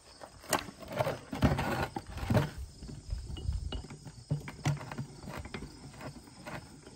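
Metal clunks and clicks of a small cast-iron drill press vise being handled and its jaw adjusted. There are a few sharper knocks in the first two and a half seconds, then lighter ticks.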